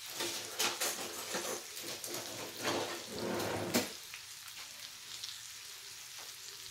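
Freshly baked pork spareribs sizzling and crackling in their hot juices in a glass baking dish just out of the oven. The crackling is strongest for about the first four seconds, then settles to a faint hiss.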